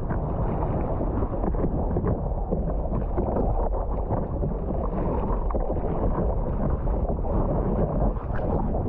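Steady wind rumble on the microphone mixed with water sloshing and splashing, as heard out on the sea on a paddleboard.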